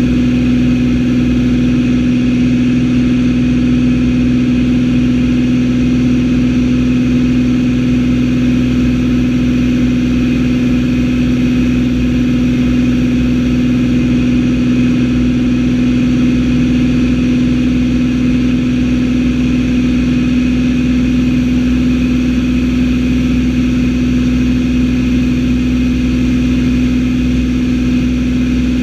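Engine and propeller of a single-engine light airplane running steadily, heard from inside the cockpit: one strong, unchanging hum.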